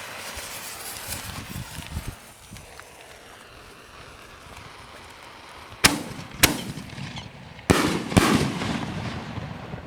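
Two consumer aerial firework shells, a willow and a glitter, firing together: two sharp launch thumps about half a second apart, then about a second and a half later two louder bursts, followed by a fading crackle.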